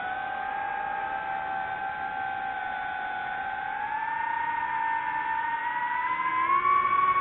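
Camera drone's motors and propellers whining steadily, the pitch creeping slowly upward and stepping up a little near the end.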